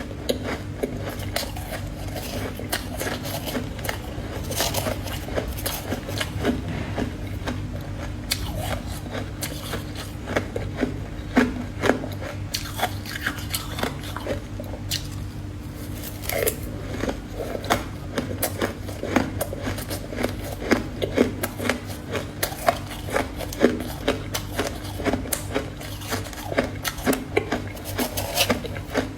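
Close-miked biting and chewing of frozen powdery ice, many crisp crunches coming irregularly, over a steady low hum.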